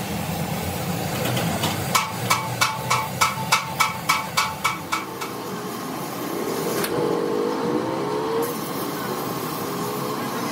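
A run of about a dozen ringing metal strikes, roughly four a second, like a hammer on metal, a couple of seconds in, over a steady low engine or machine hum.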